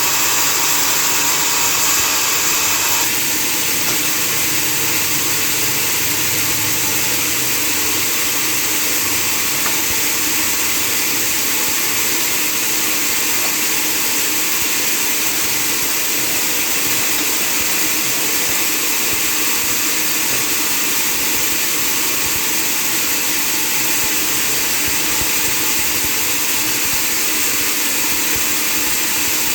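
Sawmill machinery running with a loud, steady, even whirring noise; its tone shifts slightly about three seconds in.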